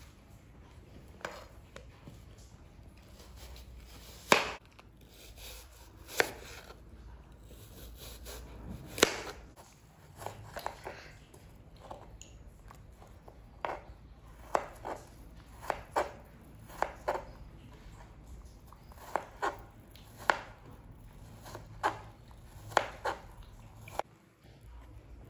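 Kitchen knife cutting fruit on a plastic cutting board: irregular sharp knocks of the blade striking the board, a few spaced cuts at first (the loudest about four seconds in), then a quicker run of cuts through the second half.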